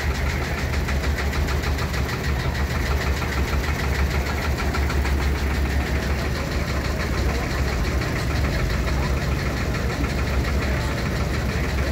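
Vintage tractor engines running slowly at low revs, close by, with a steady low pulsing rumble.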